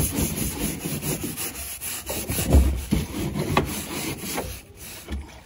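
Scrubbing brush rubbed over a soapy car body in irregular back-and-forth strokes.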